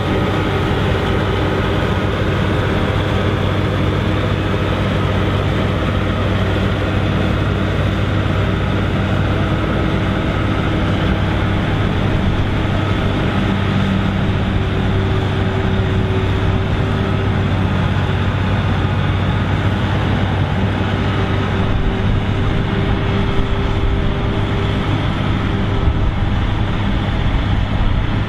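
Claas Jaguar 850 forage harvester running under load as it cuts and chops standing maize: a loud, steady engine drone with a constant hum and the rush of the crop through the chopper.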